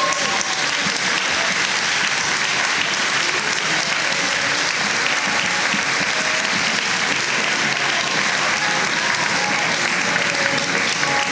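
Steady applause from a large audience, clapping without a break, with faint talking under it.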